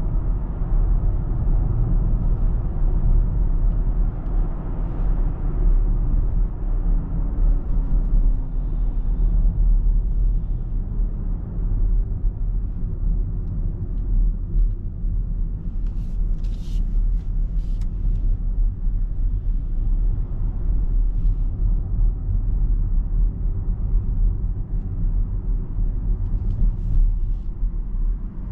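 Steady road and tyre noise from a BMW iX3 electric SUV driving, a continuous low rumble with no engine note. Faint sliding whines come and go, and a few brief high ticks sound just past halfway.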